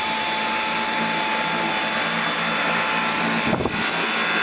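Dyson V8 cordless stick vacuum running with its trigger held, a steady high whine over rushing air. A brief rustle or knock breaks in about three and a half seconds in.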